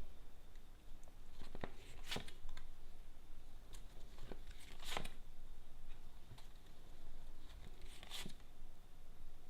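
Tarot cards being drawn and turned over by hand: about four short papery swishes and flicks a second or more apart.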